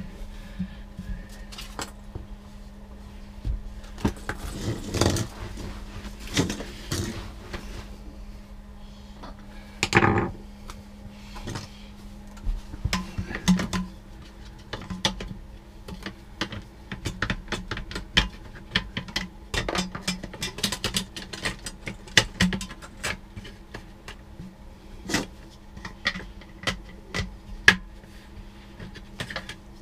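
Hand work on an RV toilet bowl and its base: scattered clicks, clinks and knocks of hard parts being handled and fitted, with a louder knock about ten seconds in, over a steady low hum.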